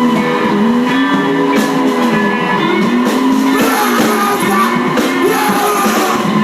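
Loud electric guitar noise improvisation: dense, layered, distorted drones with a low pitch that swoops up and down about once a second under a steady high whine.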